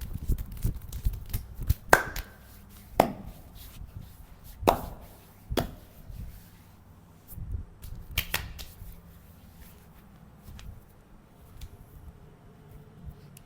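Hand strikes of a massage: a string of sharp slaps on the body, a second or so apart, growing sparser and softer towards the end with faint light taps.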